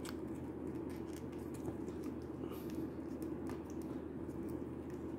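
Faint clicks and rubbing from the hard plastic parts of a Jada Toys M. Bison action figure as its detachable shoulder pad is handled and clipped on, over a steady low hum.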